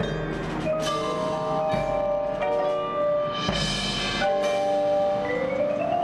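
Marching band front ensemble playing, led by mallet percussion (marimba, bells) in quick stepwise runs over a sustained low note. A cymbal-like crash rings out about three and a half seconds in.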